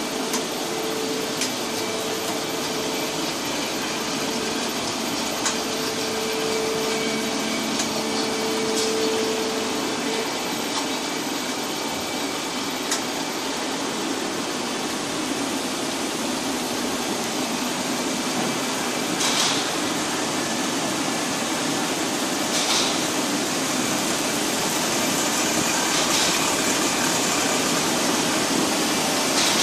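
Plastic hose extrusion line running: a steady, even machine noise with a faint hum in the first third and a few light clicks.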